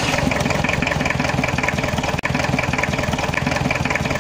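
Mahindra Jeep CJ 500D's four-cylinder diesel engine idling steadily with an even, rapid pulsing, a second after being started.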